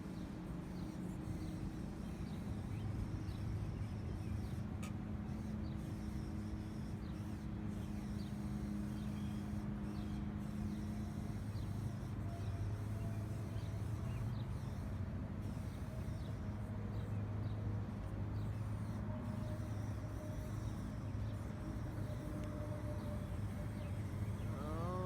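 Small electric motors and gearing of 1/24-scale RC crawlers running steadily in low gear, a continuous low hum, with a brief rising chirp near the end.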